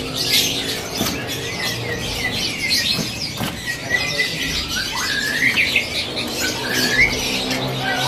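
Many caged songbirds chirping, squawking and whistling at once, with short rising whistles in among the chatter.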